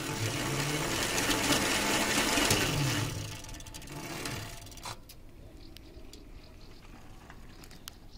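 Electric motor of a homemade electric bicycle drive running under power with a rattly whir, winding down from about three seconds in and stopping with a click near five seconds. Only faint clicks follow.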